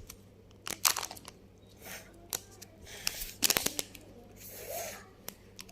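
Toy packaging being torn and crinkled open by hand: irregular crackles and short rustles, loudest near the start and about halfway through.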